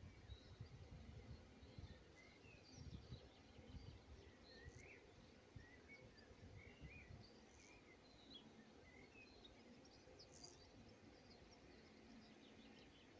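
Near silence: faint outdoor ambience with many small, scattered bird chirps, over a low rumble that dies down about halfway through.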